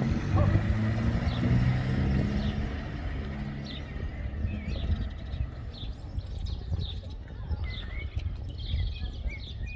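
A vehicle engine hums low in the first few seconds and then fades out. Small birds chirp over it again and again, more often in the second half.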